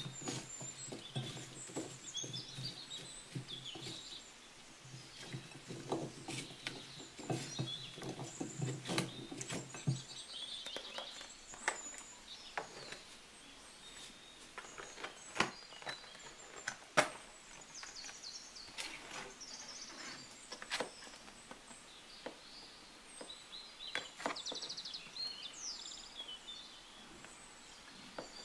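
Scattered light clicks and taps of food being handled: a salad tossed with a utensil in a glass bowl for the first ten seconds or so, then a paperboard food box handled and opened. Birds chirp faintly throughout.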